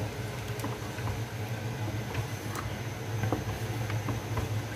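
A spoon stirring a thin stew in a metal pot, with scattered light clicks and scrapes against the pot, over a steady low hum. The stirring is continuous as a flour paste is mixed in to thicken the nihari, so that it does not form lumps.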